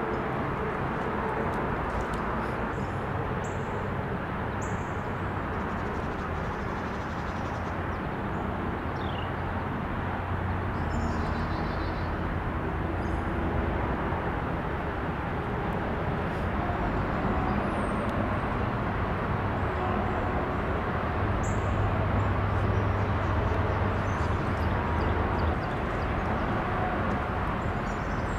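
Steady outdoor background rumble with a low hum that swells in the second half and drops off near the end. A few short, high bird chirps sound over it.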